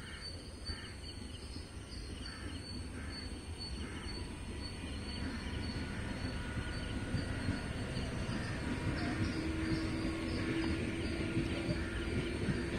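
Outdoor ambience: birds calling in short repeated calls, about two a second, over a low rumble that grows steadily louder. A steady hum joins in during the last few seconds.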